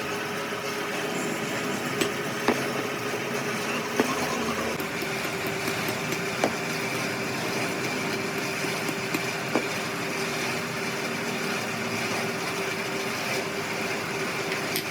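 A motor-driven machine running steadily, with a few sharp clicks now and then.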